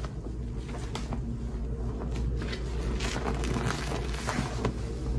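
Soaked sponge squeezed in a basin of sudsy rinse water: wet squelches and splashes as it is pressed under the foam, with a stream of water pouring back out of it into the basin. The squelches come irregularly and are thickest in the middle.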